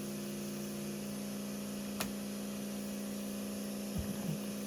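Small 5-volt DC motor running on a breadboard with a steady hum, one overtone dropping out about a second in; a sharp click about two seconds in and a few light knocks near the end.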